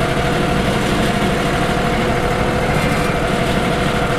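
Wood-Mizer LT35 HD portable band sawmill's engine running steadily, a constant drone with a low rumble and a few held tones.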